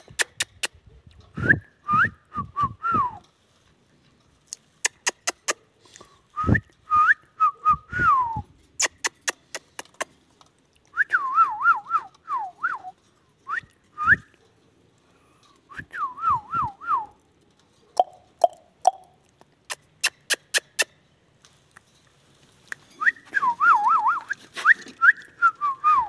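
Indian ringneck parrot whistling short phrases of gliding notes, in bursts a few seconds apart, with sharp clicks in between.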